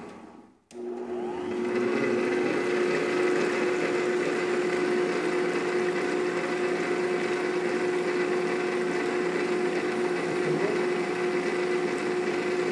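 Electric stand mixer with a wire whisk beating liquid cake batter: a steady motor hum with a constant whine. There is a brief gap of near silence less than a second in, then it runs on evenly.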